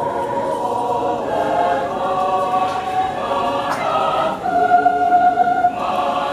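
Mixed choir of men's and women's voices singing in harmony, in long held chords, one held for over a second past the middle.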